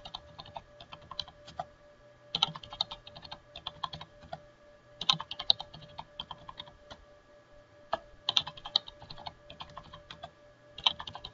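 Computer keyboard being typed on in several short runs of keystrokes with brief pauses between them, as passwords are entered.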